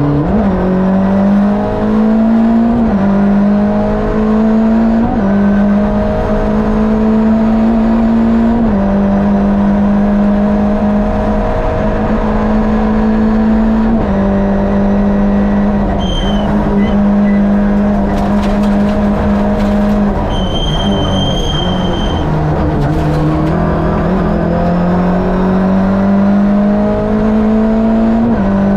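Onboard sound of a Lada VFTS rally prototype's Fiat 2-litre twin-cam four-cylinder engine, driven hard at high revs through a special stage, its pitch stepping with each gear change. The revs drop about two-thirds of the way through and then climb steadily again, with short high-pitched squeals now and then.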